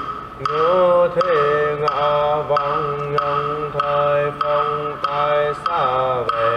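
Buddhist chant: a voice intoning a mantra in a melodic line that rises and falls, with syllables changing about every half second over a steady held tone beneath.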